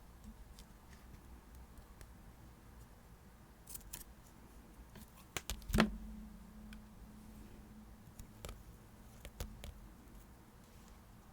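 Stationery and paper being handled on a desk for diary decorating: scattered light clicks and taps, with one louder knock about six seconds in that rings briefly.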